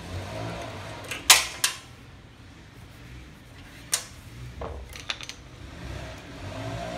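A few sharp metallic clicks and knocks from hands handling parts at the carburetor of a Briggs & Stratton 6 HP lawnmower engine. The loudest pair comes about a second in, another about four seconds in, and several lighter ticks follow.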